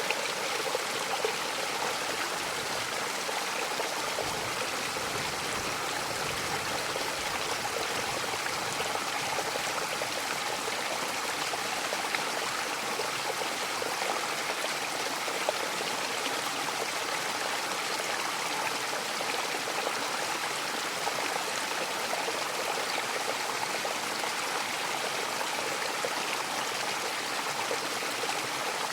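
Mountain waterfall rushing steadily, a dense, even splashing and hiss of falling water that does not change.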